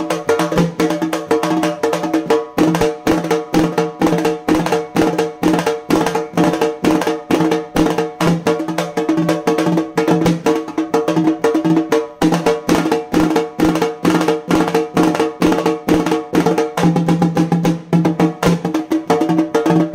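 Halgi frame drum played solo in a fast, steady rhythm of sharp stick strokes, its taut head ringing with a steady low tone under the hits.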